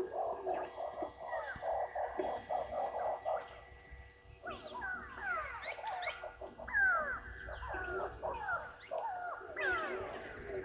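Wild birds calling: a rapid chattering trill in the first few seconds, then many quick falling whistled notes, over a steady high buzz of insects.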